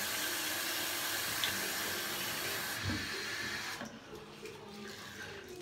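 Bathroom sink tap running steadily, then turned off about three seconds in with a low knock.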